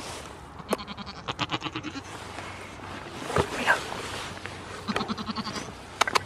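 Goat bleating close by: short, stuttering calls with a quick wavering pulse, one louder call in the middle, and a couple of sharp clicks.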